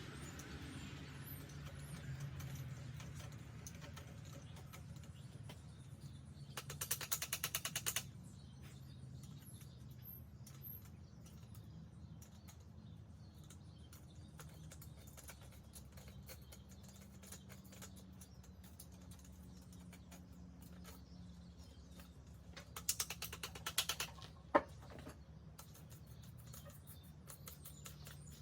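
Two short bursts of dense, rapid crackling from a small IGBT inverter stick welder's arc, each lasting about a second: brief tack welds, over a steady low hum.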